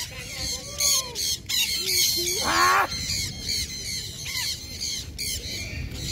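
A flock of conures flying overhead, screeching continuously with rapid, overlapping, high-pitched calls.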